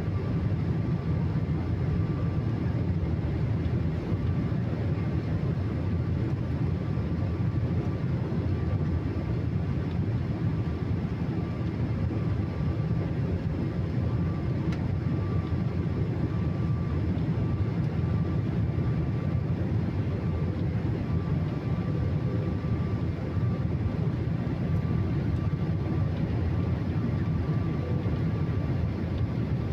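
Boeing 777-300ER's jet engines running steadily: a low, even rumble with a thin steady whine above it, holding the same level throughout.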